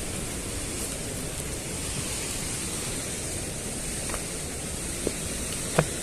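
Gorge stream and waterfall water rushing steadily, with a sharp knock near the end.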